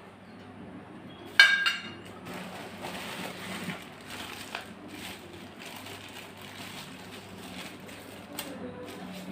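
Handling noise: a sharp metallic clink that rings briefly about one and a half seconds in, then light scattered clicks and rustling over a steady low hum.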